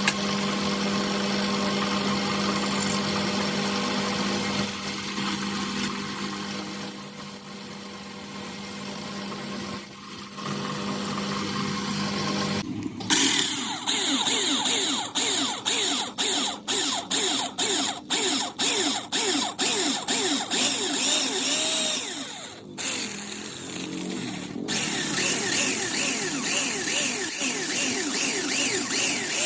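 Metalworking machine tools running. A steady motor hum lasts until about halfway through. It gives way to a harsh, rhythmic machining sound that breaks off about twice a second, then to steady machine noise near the end.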